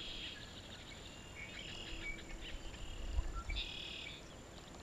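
Marsh birds chirping and calling in short phrases over a steady high insect drone, with a couple of low thumps a little past the middle.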